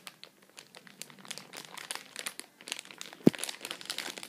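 Plastic packaging of squishy toys crinkling irregularly as it is handled, with one sharp click about three seconds in.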